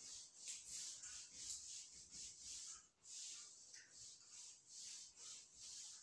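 Handheld whiteboard duster wiping marker writing off a whiteboard: faint, quick back-and-forth rubbing strokes, about two to three a second.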